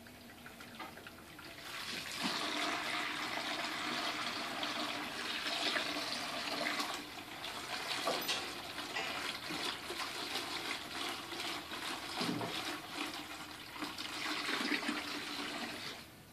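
Water splashing and sloshing in a plastic bucket, a continuous rushing with many small splashes. It starts about two seconds in.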